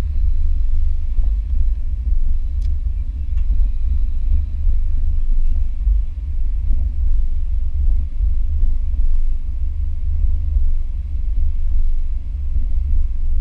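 Low, steady rumble of a Dodge V8 car heard from inside the cabin as it rolls along slowly at low revs.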